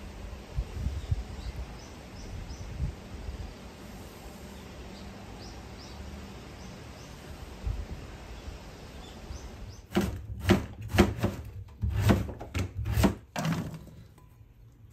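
Outdoor ambience of a low rumble with faint bird chirps. About ten seconds in comes a quick run of sharp knocks lasting some three seconds.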